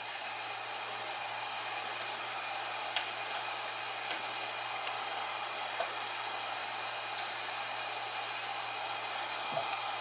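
Steady whooshing fan noise with a faint low hum from the powered-on 3D printer's cooling fans. A few faint clicks are heard while the hex screws on the Y stop micro switch are loosened.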